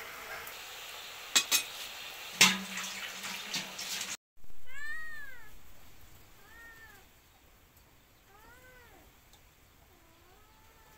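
Wood fire crackling, with a few sharp loud pops about a second and a half and two and a half seconds in. After a brief break, a cat meows several times in short calls that rise and fall in pitch.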